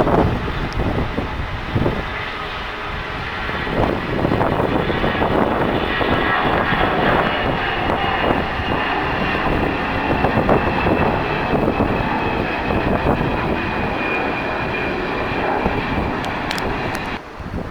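Airliner's engines running as the aircraft passes on the runway, with a high whine that slowly falls in pitch. The sound cuts off suddenly near the end.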